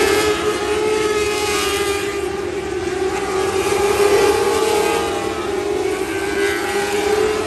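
Lightning sprint cars racing on a dirt oval, their high-revving engines making a continuous whine that wavers in pitch and swells loudest about four seconds in as cars pass.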